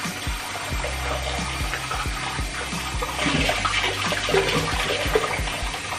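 Water running in a bathroom, a steady rushing that swells a little around the middle.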